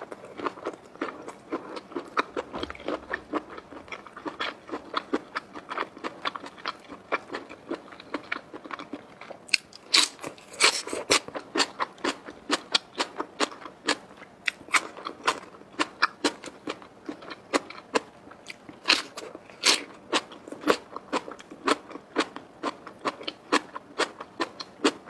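A person biting and chewing crunchy food, a steady run of crisp crunches that get louder about ten seconds in.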